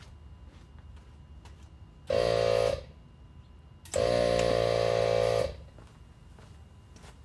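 ARB 12-volt on-board air compressor running in two short buzzing bursts, the first under a second and the second about a second and a half, pressurising the air line to the sway bar's pneumatic disconnect actuator.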